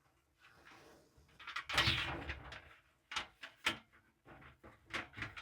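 Hands working parts inside a clothes dryer's cabinet during reassembly: a scraping rub about two seconds in, then several sharp knocks.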